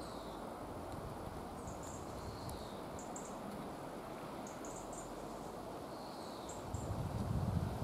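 Outdoor garden ambience: faint, short high chirps, often doubled, every second or so, and a falling call every two to three seconds from small wild creatures. A low rumble swells near the end.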